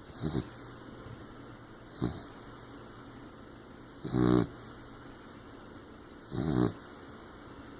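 Sleeping 15-week-old blue nose pit bull puppy snoring and snorting, four breaths about two seconds apart; the first two are short, the last two longer and louder.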